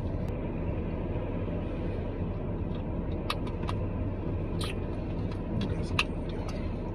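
Steady low hum of a car's idling engine, heard from inside the cabin, with a few light clicks and taps between about three and six seconds in.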